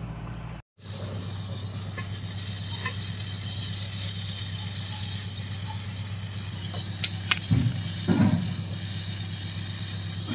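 Portable gas stove burning under a clay pot with a steady low hum and hiss. A few knocks about seven to eight seconds in, then a sizzle that grows as leaves are dropped into the hot oil in the pot.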